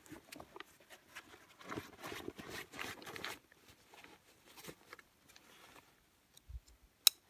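Rustling and crinkling of a nylon backpack and a heavy-duty plastic bag as the bag of meat is settled into the top of the pack and the pack is closed. It comes in bursts with scattered light clicks, and there is one sharp, loud click near the end.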